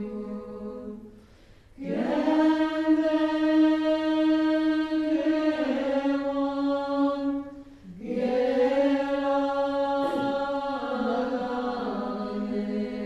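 A group of women singing a Tibetan Bön long-life prayer together, a slow chant of long held notes. The singing pauses briefly for breath about a second and a half in and again about eight seconds in.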